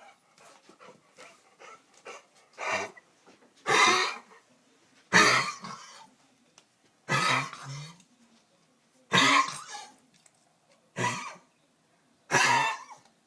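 A dog coughing seven times, one cough every one and a half to two seconds.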